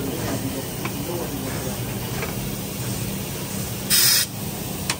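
A short blast of compressed air hissing about four seconds in, over a steady low machine hum with a few faint clicks.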